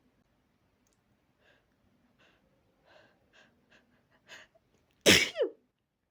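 A person's sneeze build-up: a run of short, catching in-breaths that grow louder and closer together, then one loud, explosive sneeze about five seconds in, ending in a voiced sound that falls in pitch.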